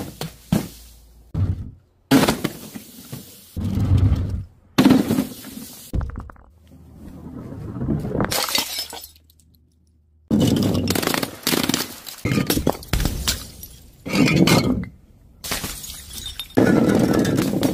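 A quick run of separate smashes and bursts with a break of near silence in the middle: balloons popping on a bed of nails, a glass jar shattering, and a fiery blast near the end.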